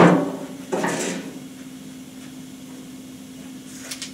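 A short rustling handling noise about a second in, then a steady low hum with a few faint light clicks near the end.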